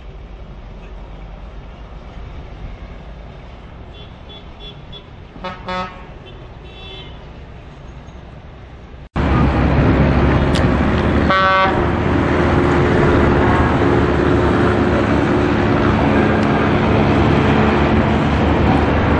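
Bus-stand traffic, with a vehicle horn tooting briefly about five and a half seconds in. After an abrupt cut about nine seconds in, a bus engine runs much louder and closer, and a short horn blast sounds about two seconds later.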